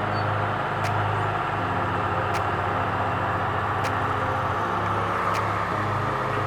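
A motor vehicle running steadily, with a low engine hum under road and wind noise and faint, regular ticks.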